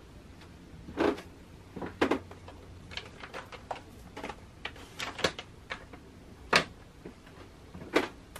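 Makeup cases and palettes being handled and set down in a vanity drawer: a series of sharp clacks and taps at irregular intervals, the loudest about a second in, two seconds in, around six and a half seconds and near the end.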